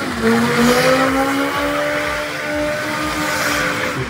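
BMW E36 coupe doing a burnout, its engine held at high revs with a slight rise and fall in pitch, over the steady hiss of the spinning rear tyres.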